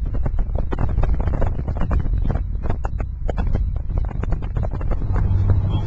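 Wind buffeting the camera microphone in dense, irregular crackling gusts over the low rumble of a moving car. A steady low drone comes in near the end.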